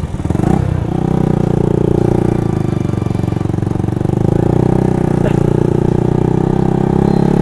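Yamaha sport motorcycle's engine running as the bike pulls away and rides on at a steady pace. It makes a steady drone that gets a little louder about four seconds in. The rider finds its sound odd after the crash.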